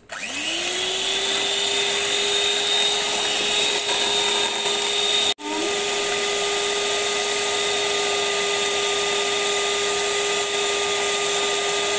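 Electric hand mixer running steadily, its beaters whisking eggs and sugar in a steel bowl. It spins up at the start, cuts out for an instant about five seconds in, and picks straight back up.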